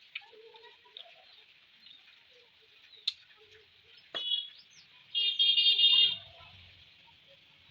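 Faint clicks and smacks of eating fish curry and rice, then a bird calling: a short high call about four seconds in and a louder high call lasting about a second just after five seconds.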